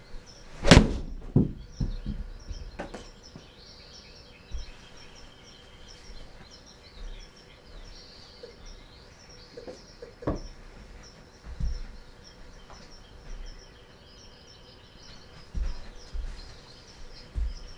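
A pitching wedge shot: the club strikes a golf ball into an indoor simulator impact screen with one sharp smack about a second in. The ball then drops and bounces a few times. Scattered lighter knocks and low thumps follow.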